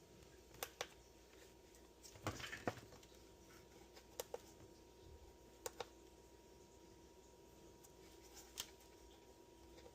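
Faint, scattered clicks and light taps, several of them in pairs, from handling a test meter's probes and a small circuit-board part on a workbench, over a low steady hum.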